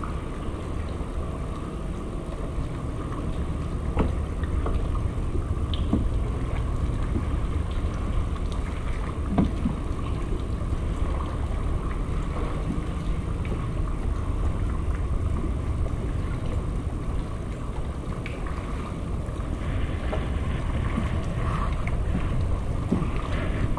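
Steady low rumble of wind noise on the microphone while the kayak sits on the water, with a few scattered light clicks and knocks from gear on the boat.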